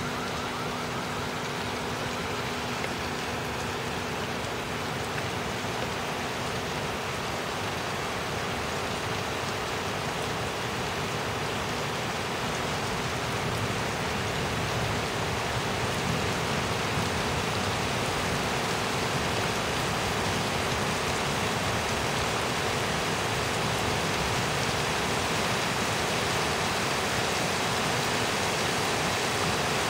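Steady rain falling during a thunderstorm: an even hiss with no thunderclaps, growing a little louder about halfway through.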